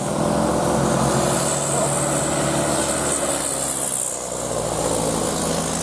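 Bus engine running steadily, with no horn sounding.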